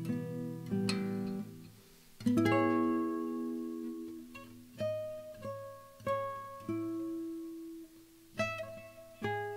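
Background music: acoustic guitar, plucked notes and chords that each ring out and fade, with the loudest chord about two seconds in.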